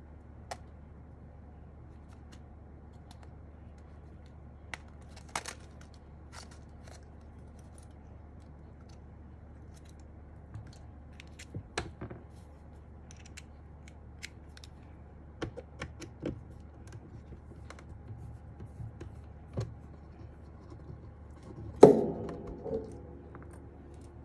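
Scattered small clicks and taps of hard little tools and parts being handled while a precision screwdriver bit is swapped. Near the end comes one sharp clatter with a brief metallic ring, as something hard is set down or dropped.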